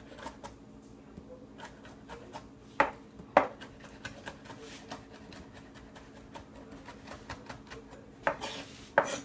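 Kitchen knife mincing tomato on a cutting board: a run of light, quick taps, with a couple of louder knocks about three seconds in and again near the end.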